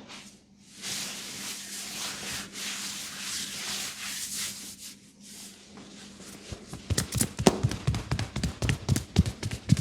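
Hands rubbing vigorously over a person's scalp and hair, a steady rustling. From about seven seconds in, this gives way to fast percussive head-massage strikes with the hands, about five a second.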